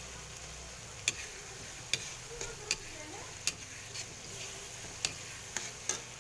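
A metal ladle stirring tomatoes and onions sautéing in oil in a wok, clinking and scraping against the pan about eight times over a steady sizzle.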